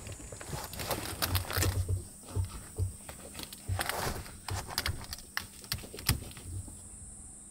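Quilted insulated window shades being handled and pressed into place against a car's windscreen and side window: irregular fabric rustling, soft taps and clicks, and dull thumps of hands on the panels, busiest in the middle and fading out near the end.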